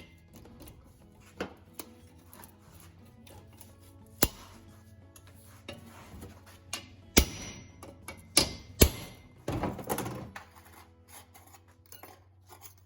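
Scattered sharp knocks and clinks from work on a Ford 8.8 differential, pulling the pinion seal out of the housing, with the loudest strikes about seven to nine seconds in. Music plays quietly underneath.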